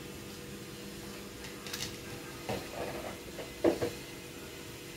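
A few light knocks and taps from cooking at a steel pot as green chillies are dropped into hot water for fried rice, the loudest about two-thirds of the way through. A steady faint hum runs underneath.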